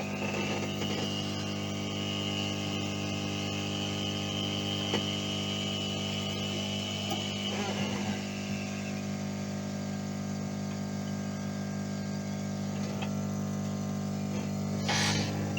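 The built-in piston air compressor of a Lukey 852D+ hot-air soldering station running with a steady hum. A thin high tone sits over it for about the first eight seconds, then fades out.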